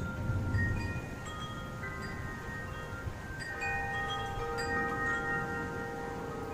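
Wind chimes ringing in the wind, several tones struck at random and left to ring over one another, with a low rumble underneath.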